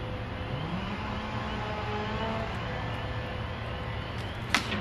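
Engine of the tree-removal machinery running steadily, its pitch rising about half a second in and then holding. A sharp knock near the end.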